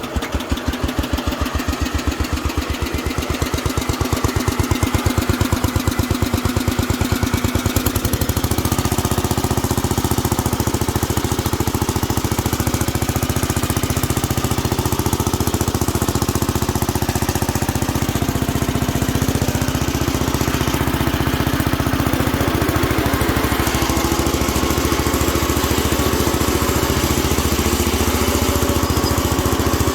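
1971 Sears Hydro-Trac 14 garden tractor engine starting up and running. Its sound changes about eight seconds in, then it runs steadily.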